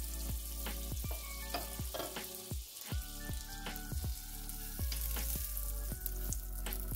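Butter sizzling as it melts and foams in a hot nonstick frying pan, brushed across the pan with a silicone pastry brush. Background music with a steady beat plays underneath.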